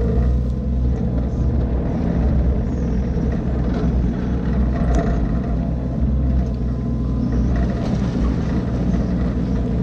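Diesel engine of a piece of heavy equipment running steadily, with a few faint clinks.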